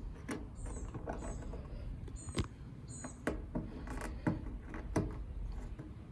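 Tape being peeled off a metal toolbox after being cut with a knife: irregular crackling ticks and clicks with a few short high squeaks.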